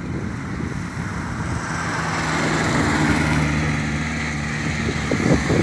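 Small motorcycle engine running at a steady speed, its note coming in about a second and a half in and holding, with a few short knocks near the end.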